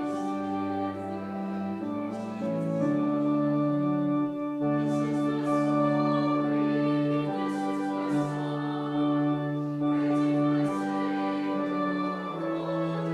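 Church organ playing a slow hymn in held chords that change every second or two, accompanying the congregation's sending hymn.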